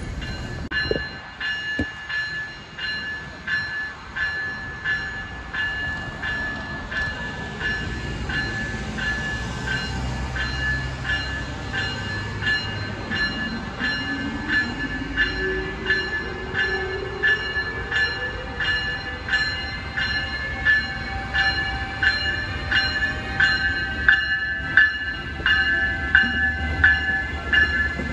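Passenger train rolling past, its wheels clicking over rail joints in an even rhythm that quickens to about two clicks a second as it picks up speed. A steady high whine and a low rumble run underneath, and a rising motor whine comes in midway.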